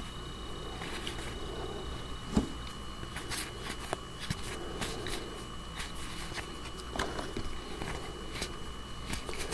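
Magic: The Gathering cards being thumbed through by hand, one card slid off the stack after another: a run of light, irregular card clicks and slides, two of them a little louder, over a steady background hum.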